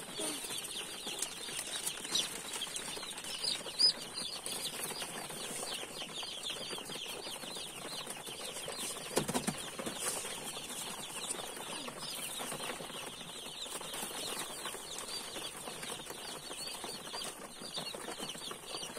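A crowd of day-old broiler chicks peeping continuously, many short falling cheeps overlapping into a steady chorus. A sharp knock about four seconds in and a dull bump about nine seconds in.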